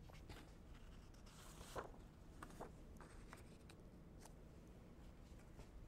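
Near silence: room tone with a few faint, brief ticks scattered through it.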